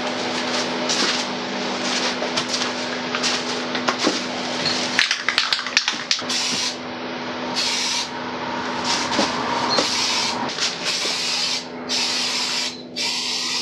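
Aerosol can of filler primer spraying with a hiss, cut into short bursts that start and stop repeatedly in the second half, over a steady low hum.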